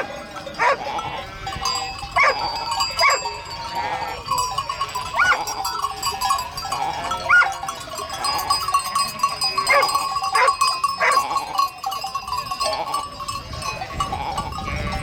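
A flock bleating, many short wavering calls overlapping and repeating every second or so, over a steady thin ringing tone.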